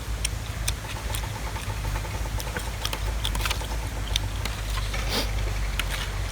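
Steady low wind rumble on the microphone, with scattered small clicks and taps over it.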